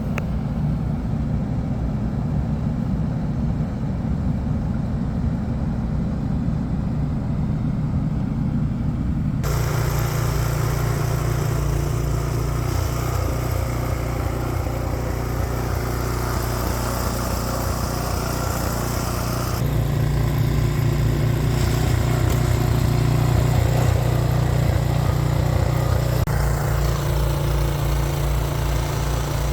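An engine running steadily, its sound changing abruptly about a third and two-thirds of the way through.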